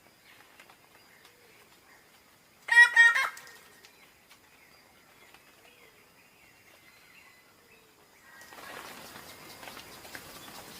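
A bird of paradise gives one loud, harsh call of two quick notes about three seconds in, over faint background. From about eight seconds a steady, noisy hiss of background sound with small clicks comes up.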